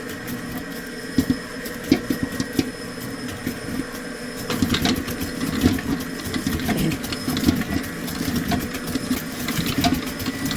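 Electric mixer running steadily while creaming butter and sugar, its motor humming with irregular clicks and knocks.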